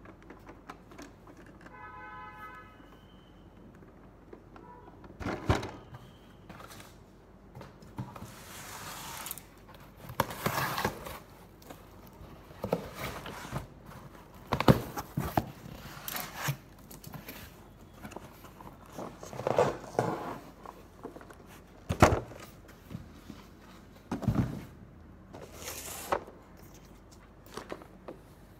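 Cardboard boxes being handled and opened on a tabletop: scattered thumps and knocks as they are set down and shifted, with rustling and scraping of cardboard and plastic packaging in between.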